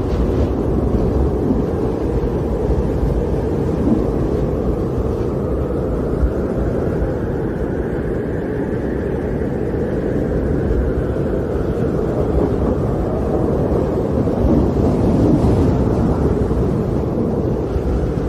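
Storm wind blowing steadily: a low, rushing noise that swells and rises a little in pitch about halfway through, then settles back.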